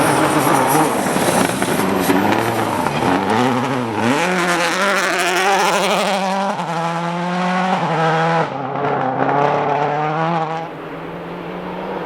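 Rally car driven hard on a gravel test stage. It passes loud and noisy at first, then the engine note dips and climbs in steps through the gear changes, and it fades as the car moves away near the end.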